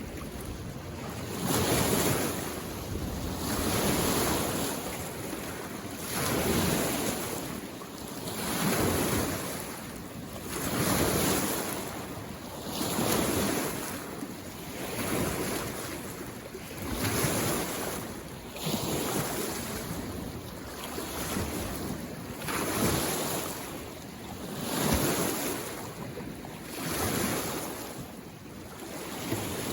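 Small waves on a mountain lake coming in against the shore, one wash roughly every two seconds in an even rhythm.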